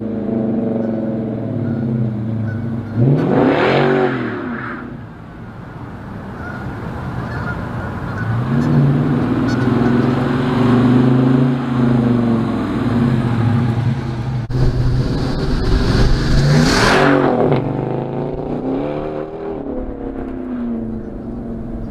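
2017 Dodge Charger R/T's HEMI V8 accelerating and revving past the camera. It makes two loud passes, about three and a half seconds in and again near seventeen seconds, each rising and then falling in pitch as it goes by, with steadier engine revs in between.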